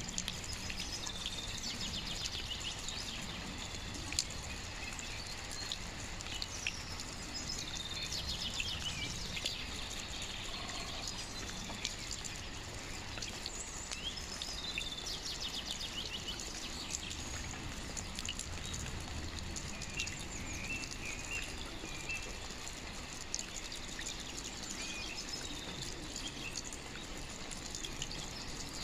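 Steady rain falling outside, with birds chirping in short trilled bouts now and then. A few drops tick sharply.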